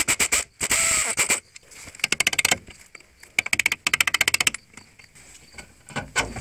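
Pneumatic air ratchet running in four short bursts, a rapid rattle of clicks with air hiss, undoing the 12 mm nuts of a sway bar link. A dull knock near the end.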